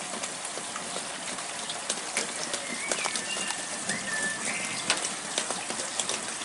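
Steady rain falling, with many sharp drip ticks close by. A bird gives a few short chirps about a third of the way in and again near the middle.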